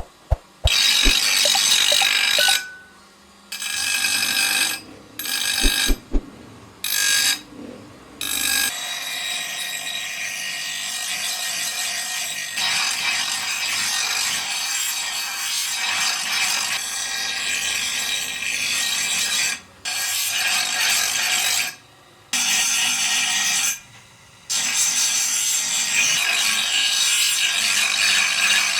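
Rough rasping scrape of a tool worked against a steel blade, in strokes a few seconds long with short pauses between, and one long unbroken stretch. A few light knocks come near the start.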